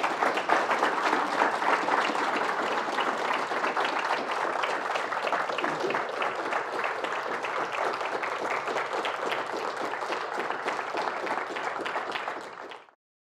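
Audience applauding steadily at the end of a talk, the clapping cutting off suddenly near the end.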